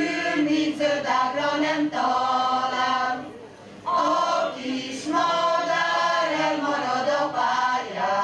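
A choir singing a slow Hungarian folk song in long held phrases, with a short pause for breath about three and a half seconds in.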